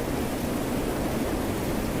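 Steady rush of rain and ocean waves, an even noise with no distinct events.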